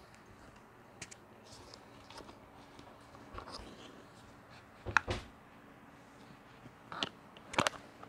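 Scattered clicks and light taps of a computer mouse being worked through lighting software. They come singly or in small groups a second or so apart, and the loudest, about five seconds in, carries a dull knock.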